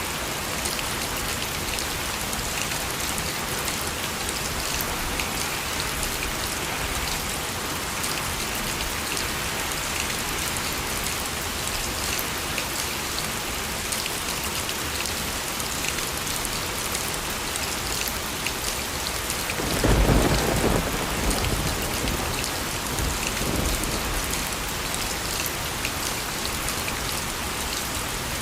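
Steady rain falling, with one clap of thunder about twenty seconds in and its rumble tailing off over the next few seconds.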